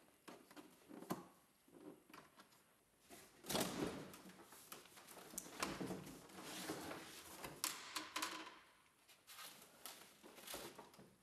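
Faint handling noise from unpacking a plywood packing case: scattered clicks and knocks, then from about three and a half seconds in a longer stretch of scraping and rustling as the plastic-wrapped controller and its packing are moved.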